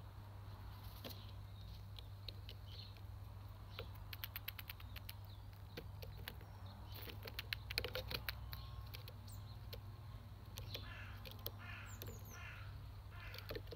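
Eurasian magpie pecking at monkey nuts on a wooden table: a run of sharp taps and cracks of its beak on the peanut shells and boards, loudest about eight seconds in, over a steady low hum.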